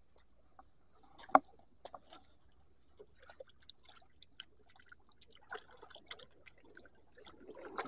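Light handling noises of fishing line and tackle: scattered small clicks and rustles, with one sharp click a little over a second in, over faint trickling of shallow water among rocks.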